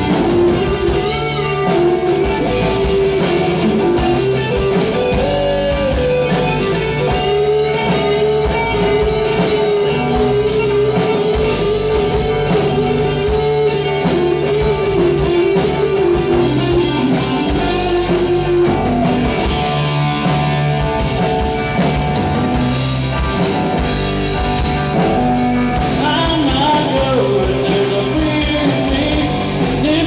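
Live rock band playing loud: an electric guitar lead with long held, bending notes over bass and drums.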